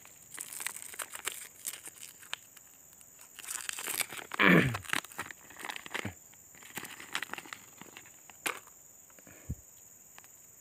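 Clear plastic lure packet crinkling, rustling and being torn open by hand, in irregular bursts with small clicks. About four and a half seconds in there is one brief, louder sound that falls quickly in pitch.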